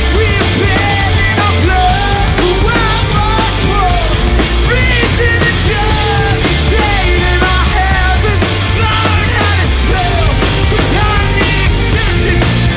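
Live punk-leaning rock band playing loudly: a wavering melodic line over steady bass and drums.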